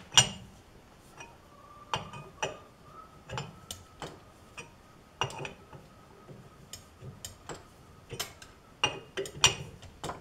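Irregular metal clinks and taps at a lathe's four-jaw chuck as the steel workpiece is adjusted and the jaws tightened by hand, a dozen or so sharp knocks, some with a brief ring.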